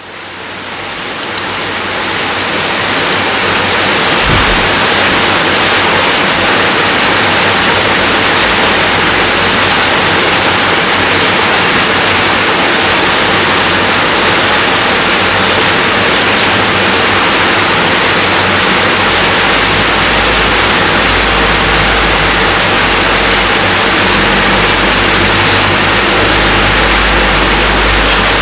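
Steady heavy rainfall, a dense even hiss that fades in over the first couple of seconds and then holds level, with a low rumble strengthening in the latter part.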